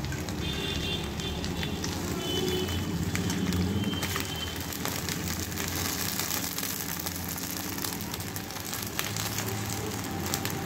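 Oil sizzling and crackling steadily under foil-wrapped bhetki fish parcels cooking in a pan on a low gas flame.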